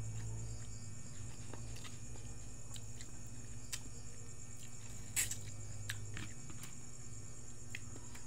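Crickets chirping steadily at night under a low hum, with scattered small clicks and taps of food being handled, the sharpest about five seconds in.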